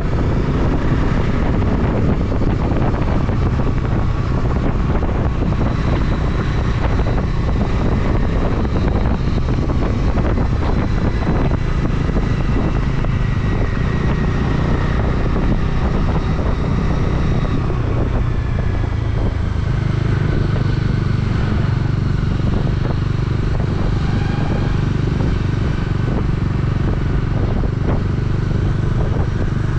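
Motorcycle engine running steadily under way on the road. The engine note changes about eighteen seconds in, as with a change of gear or speed.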